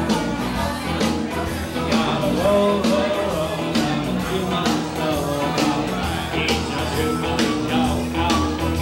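A man singing a rock song into a microphone over amplified backing music with a steady drum beat and bass.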